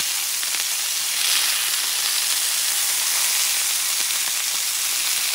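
Kangaroo loin searing in hot ghee in a frying pan: a steady, high sizzle.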